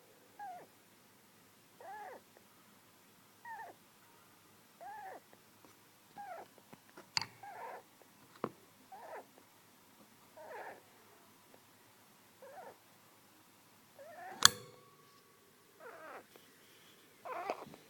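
Baby hamster snoring in its sleep: short squeaky calls that bend in pitch, about one every second and a half. A few sharp clicks cut in, the loudest about fourteen seconds in.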